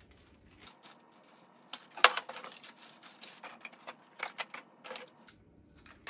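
Plastic wrapping rustling, with a run of sharp clicks and knocks as plastic smoke detector parts are unwrapped and handled. The loudest click comes about two seconds in.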